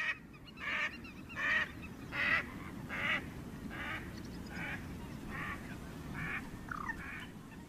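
Waterfowl calling: a series of about ten short calls, roughly one every 0.8 s, the first few loudest, over a steady low background noise.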